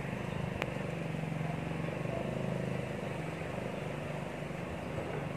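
A steady low motor drone with a few humming tones, and a single click a little over half a second in.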